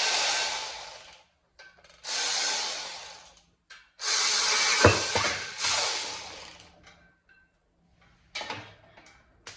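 Power tool spinning off the clutch pressure plate bolts in three bursts, each starting suddenly and tapering off. A sharp metal clank comes during the third burst, and a short knock follows near the end.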